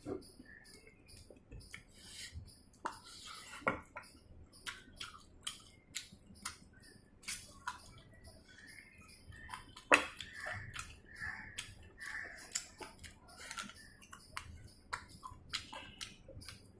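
Close-up eating sounds: chewing chicken, with irregular wet clicks and smacks of the mouth several times a second and a sharper louder one about ten seconds in.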